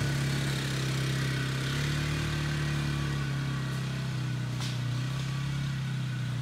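ATV engine running steadily, its pitch stepping up slightly about two seconds in.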